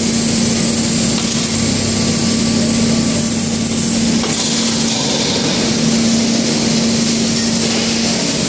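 A PP/PE woven-bag and film washing line running: loud, steady machinery noise with a constant low hum.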